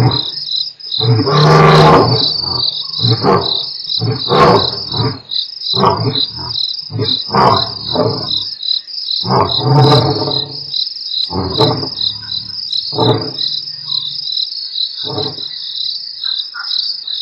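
Male lions roaring: long full roars about two seconds in and again near ten seconds, each followed by a run of shorter grunting roars, which thin out and fade toward the end. A steady, pulsing chorus of crickets runs underneath.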